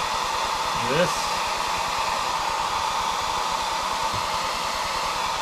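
Handheld hair dryer running steadily on high heat, a constant rushing blow of hot air.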